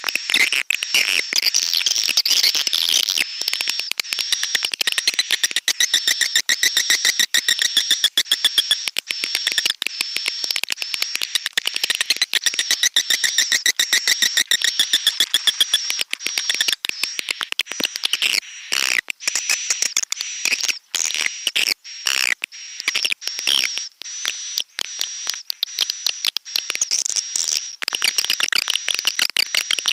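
Recorded swiftlet calls of the kind played as a lure sound for swiftlet houses: a rapid, continuous chittering made of fast clicks with a thin high trill running over it, briefly thinning out a few times in the second half.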